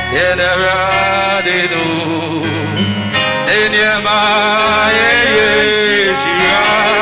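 A man singing a worship song into a microphone, his voice wavering and gliding between held notes, over instrumental accompaniment with sustained low notes.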